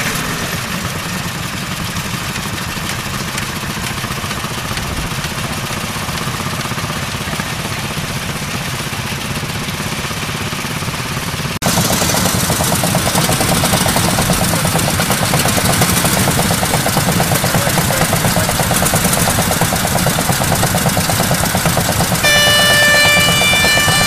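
Several Anzani Iron Horse walking tractors' engines idling together, a steady mechanical chugging that grows suddenly louder about halfway. Near the end a horn sounds in short blasts, the signal that starts the ploughing.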